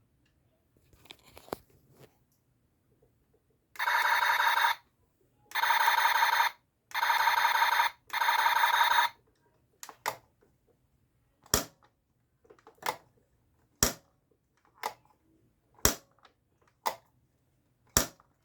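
Buzz Lightyear toy's electronic sound effects from its small speaker: four buzzy electronic tones of about a second each, followed by a run of sharp clicks about once a second.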